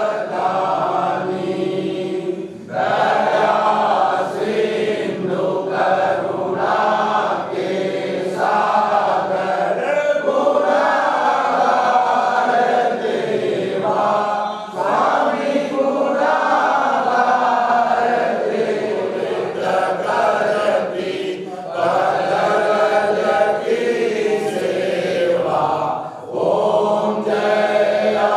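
A group of men chanting a Hindu devotional prayer together in unison, in long sung lines with brief pauses between them.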